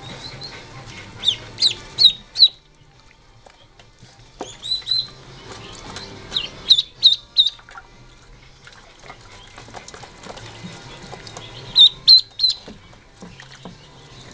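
Very young ducklings, under three days old, peeping: four bursts of loud, high-pitched peeps, three or four peeps to a burst, with quieter stretches between.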